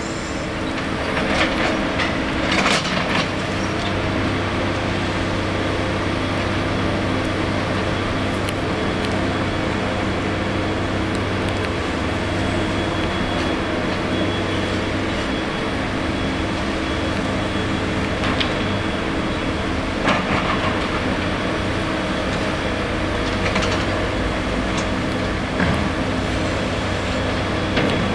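Liebherr 924 Litronic long-reach excavator at work: its diesel engine and hydraulics run steadily, with a handful of sharp metallic knocks and clanks scattered through.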